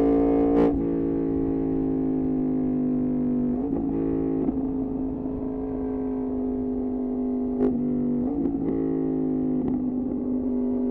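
Yamaha MT-10's crossplane inline-four running through an Austin Racing exhaust, under way at fairly steady revs with an even, buzzy note. A few short cracks break the note, around a second in, near four seconds and a couple of times near eight to ten seconds.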